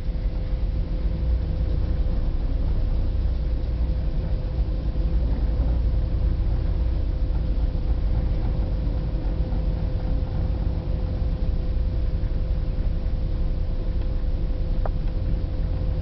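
Car ferry's engines and machinery running at cruising speed, heard inside the passenger cabin: a steady deep rumble with a constant mid-pitched hum over it.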